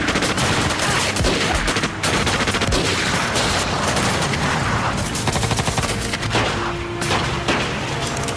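Automatic rifles firing, shots coming in fast strings with hardly a pause, a fast even run of shots near the middle.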